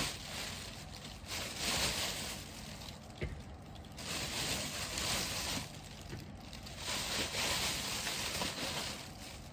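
Slow breathing of a drowsy man close to the microphone: three long, airy breaths about three seconds apart.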